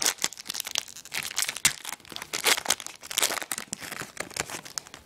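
Foil wrapper of a trading-card pack crinkling and tearing as it is opened and handled, in dense irregular crackles that stop near the end.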